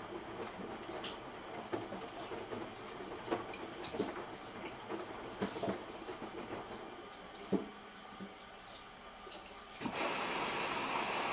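Samsung Eco Bubble washing machine mid-wash: water sloshing with irregular splashes and clicks as the drum turns, then about ten seconds in a louder, steady rushing noise starts abruptly.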